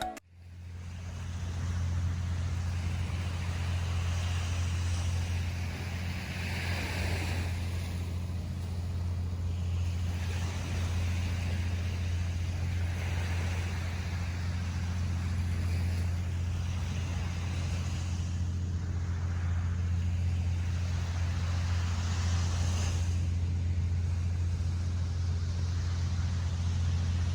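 Ocean surf on a beach: waves wash in with a hiss that swells and fades every few seconds, over a steady low rumble.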